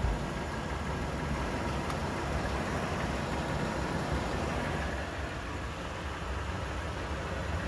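2014 Toyota 4Runner's 4.0-litre V6 idling steadily, heard from beneath the vehicle.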